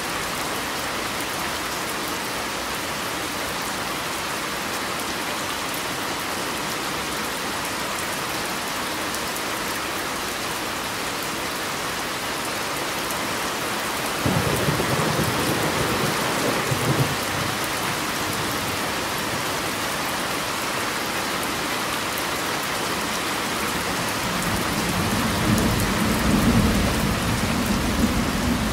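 Steady rain falling on a car's roof and windows, heard from inside the cabin. A low rumble of thunder comes in suddenly about halfway through and lasts a few seconds, and another rolls in near the end.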